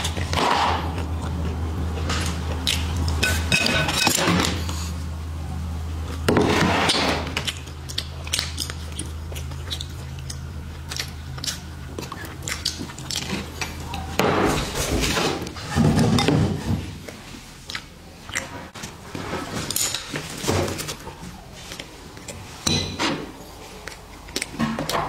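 Dishes and utensils clinking and clattering on a dining table, with scattered taps and small knocks of bowls, chopsticks and a plastic container being handled and cleared away. A steady low hum runs underneath and stops about halfway through.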